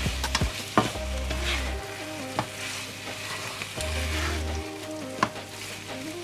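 Chicken sauce frying and sizzling in a pan while being stirred, with a spoon knocking against the pan a few times.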